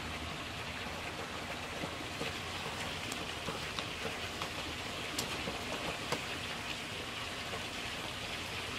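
Steady, even hiss of outdoor background noise with a few faint ticks.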